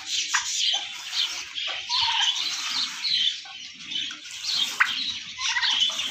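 Many birds chirping and calling at once: a dense chatter of high chirps, cut through every second or so by a short call that sweeps sharply downward.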